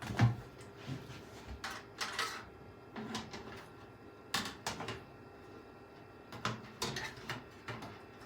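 Irregular clicks, taps and light knocks of hands handling a PC case and its parts, the kind made while fitting a back panel and its screws. A sharp knock right at the start is the loudest.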